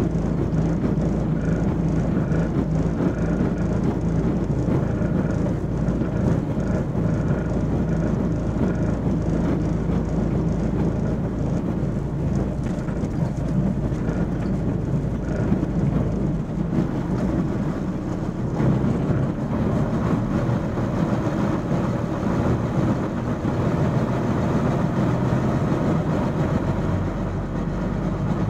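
MAN 16.370 HOCL coach running on the road, heard inside the passenger cabin: a steady low engine hum over road and body noise. The engine note drops lower about two-thirds of the way in.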